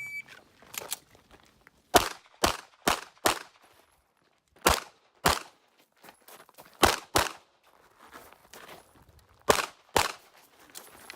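Shot timer start beep, then a competitor firing a CZ Shadow 2 pistol in quick pairs of shots, about ten shots, with short gaps between pairs while moving between targets.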